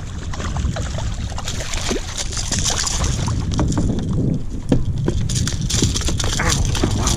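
Wind buffeting the microphone of a camera on a sit-on kayak at sea, with water splashing and scattered knocks and clicks as a hooked bass is brought alongside and lifted aboard.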